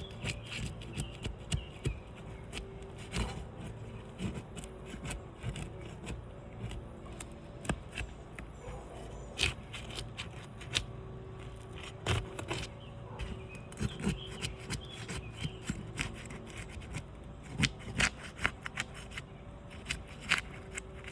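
Steel flat bar prying sealed asphalt shingles apart: irregular scraping with scattered sharp clicks as the hot sealant strips let go.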